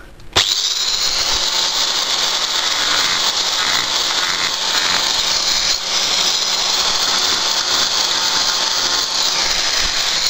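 Angle grinder with a segmented diamond disc switching on about half a second in, then running steadily as it cuts grooves into the back of a porcelain tile, with a brief dip about halfway through.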